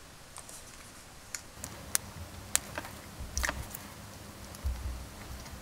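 Faint, scattered clicks and small scrapes of a craft knife blade against hard plastic as it prises up a lighter-fluid-soaked rub sign sticker, with a couple of soft low handling bumps.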